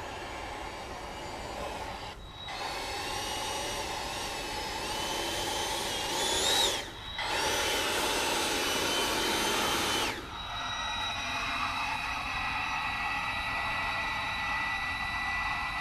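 High whine of a Freewing T-33 RC model jet, several tones together, shifting in pitch with the throttle and climbing to a peak about six and a half seconds in. The sound breaks off briefly twice, a little after two seconds and again about seven seconds in.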